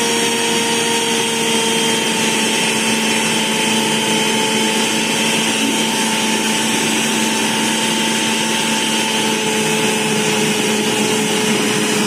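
Usha food processor's electric motor running at a steady speed, kneading flour, oil and water into a stiff dough in its plastic bowl: a loud, even whine that holds one pitch.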